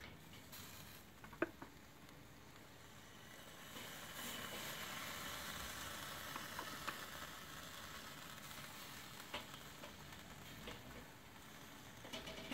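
Barbecue-sauced chicken drumsticks sizzling faintly on the hot grate of a Weber charcoal kettle grill, the sizzle swelling about four seconds in. A few light clicks of metal tongs on the grate sound over it.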